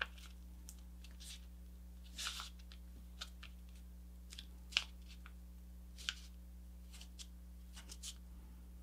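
A square sheet of paper being folded and creased by hand, fingers pressing and running along the fold: scattered faint rustles and swishes, over a low steady hum.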